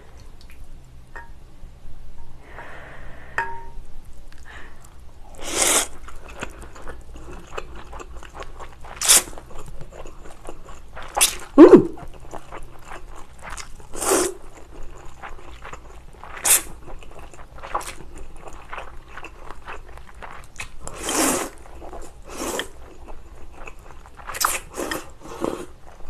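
Close-up mukbang eating sounds: chewy spicy jjolmyeon noodles slurped from cold broth in about ten short, sharp slurps with chewing between them, the loudest a little under halfway and several close together near the end, when broth is sipped from a small bowl.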